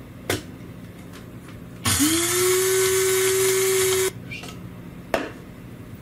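Electric blade coffee grinder (PARACITY) running for about two seconds to grind coffee to a fine espresso powder: its motor spins up quickly to a steady whine over the whirr of the grounds, then stops abruptly. A short click comes before it and another after.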